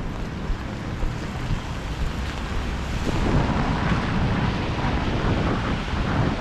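Wind rumbling on the camera microphone over steady rain and city street noise, growing louder about three seconds in.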